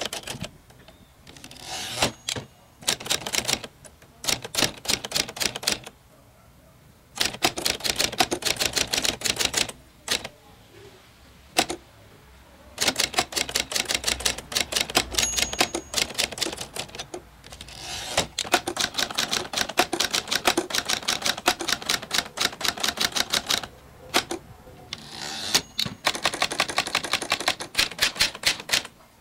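Typebar typewriter being typed on: runs of fast keystrokes, each a few seconds long, broken by short pauses.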